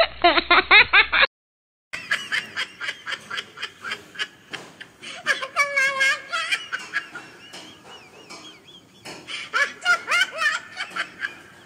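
Laughter in quick, repeated bursts, broken by a short silence about a second in.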